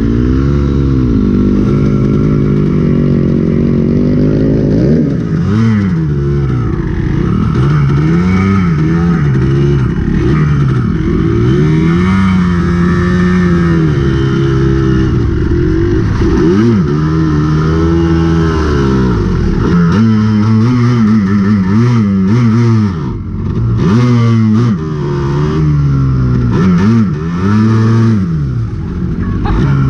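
Dirt bike engine under way, its pitch climbing and falling again and again as the throttle is opened and closed.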